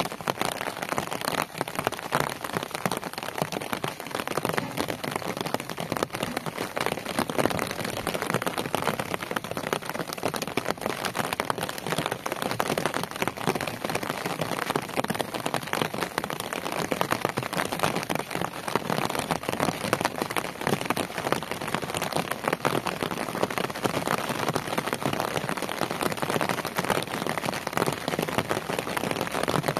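Steady rain falling on wet ground and puddles, a dense, even patter of drops.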